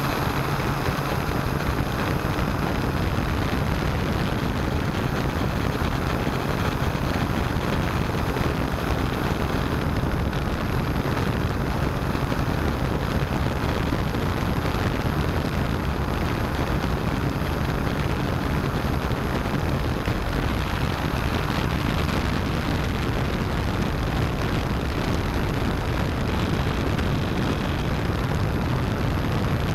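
S650 hexcopter's electric motors and propellers running steadily in flight, heard close up through the onboard keychain camera's microphone as an even rushing drone with a faint low hum.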